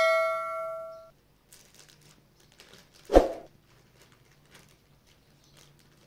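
A bell-like chime from a subscribe-button sound effect rings out and fades over the first second. About three seconds in comes a single dull thump, with faint crinkling of a plastic bag around it.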